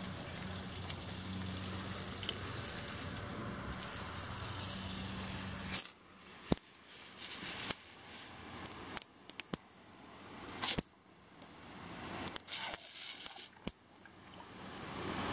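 Garden hose spraying a jet of water over a lawn: a steady hiss for about the first six seconds, then surging and fading in waves, broken by several sharp clicks.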